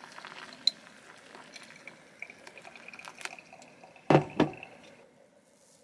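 Hot water poured from a kettle in a thin stream onto ground coffee in a paper filter cone. A little after four seconds in come two loud knocks about a third of a second apart.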